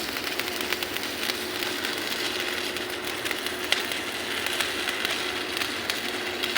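Arc welding: a steady, frying crackle with irregular sharp pops over a faint steady hum.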